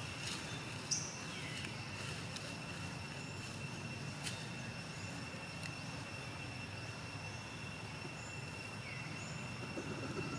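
Outdoor background: a steady high-pitched buzz over a low rumble, with a sharp short chirp about a second in, a click near the middle and a couple of brief falling calls.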